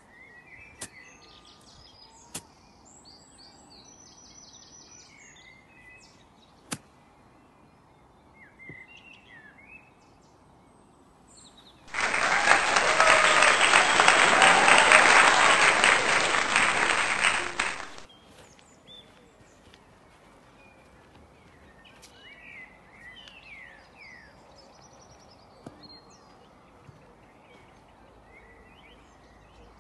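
About twelve seconds in, loud crowd applause starts abruptly, lasts about six seconds and cuts off suddenly. Around it, birds chirp faintly, with a few sharp clicks of a golf club striking the ball near the start.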